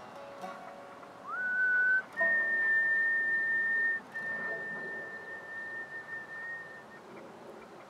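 A person whistling a long held note: it slides up about a second in, then holds a steady high pitch for about five seconds with a brief break in the middle. Fainter lower notes, acoustic guitar, ring beneath it.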